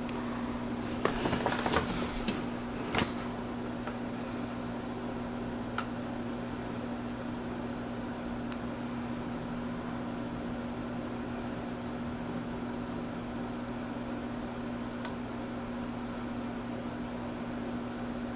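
A steady low mechanical hum, like a fan or appliance motor. A cluster of sharp clicks and taps comes about a second in, with single faint ticks later.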